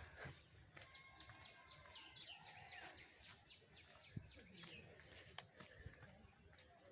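Faint birds chirping outdoors: a quick run of short falling chirps, several a second, then scattered thin high calls. A single soft knock about four seconds in.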